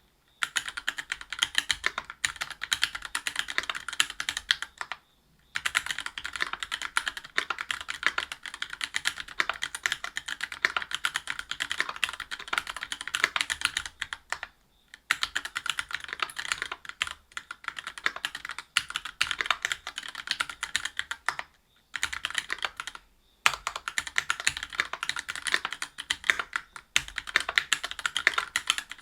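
Typing on a Whale 75 mechanical keyboard with stock Gateron Milky Yellow Pro linear switches, a brass plate and GMK keycaps: a fast, continuous run of keystrokes with a few short pauses.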